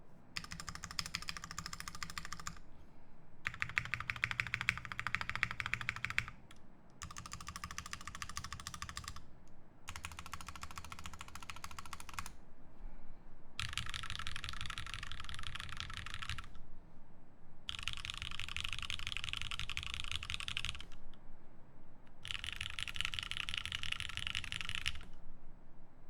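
Fast typing on a Satisfaction75 mechanical keyboard with Nixie switches on 63.5 g springs, an FR4 plate and GMK keycaps. A rapid, dense run of key clacks comes in seven bursts of two to three seconds each, with short pauses between them.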